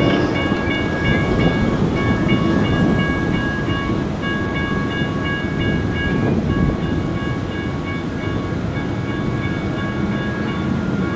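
Railroad crossing warning bell sounding from the crossing's NOVAX DS100 electronic speakers (two of them described as dying): a rapid, repeating metallic ding. Underneath it runs a steady low rumble.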